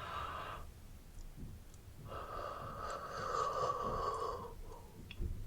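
A woman yawning: a short breath at the start, then one long, open-mouthed breathy yawn lasting about two and a half seconds from about two seconds in.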